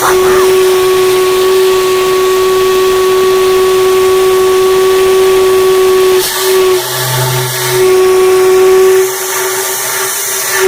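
A loud, steady whistling hum held on one pitch, wavering and dropping briefly about six seconds in and again near the end.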